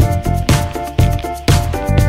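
Background music with a steady beat, about two beats a second, under held pitched notes.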